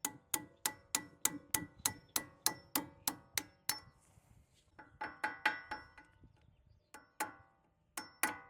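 Hammer tapping steel on a stubborn brake caliper pad-retaining pin to drive it out, each blow a sharp metallic clink that rings briefly. About a dozen even taps, roughly three a second, then a pause and a few more scattered taps near the end.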